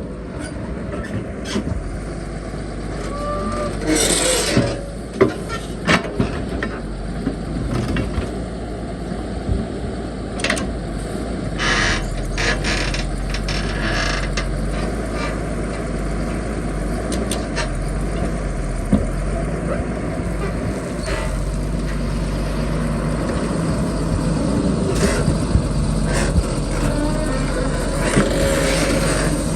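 Heavy excavator's diesel engine running steadily while digging and piling sand, with scattered clanks, knocks and creaks from the bucket and boom.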